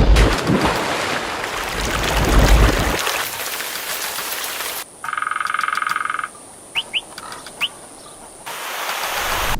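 A nature soundscape: a rushing noise for the first few seconds, then a short pulsing buzz like a frog's call, a few quick rising bird chirps, and a rush swelling again near the end.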